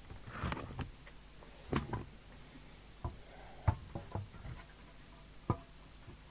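Hands working on a CB radio's casing and parts: about half a dozen scattered light clicks and knocks, a second or so apart.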